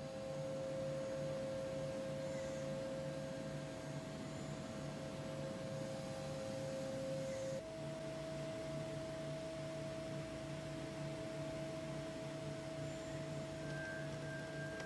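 CNC lathe running: a quiet, steady whine of two held tones over a low pulsing hum. About halfway through, the lower tone stops suddenly and the higher one carries on.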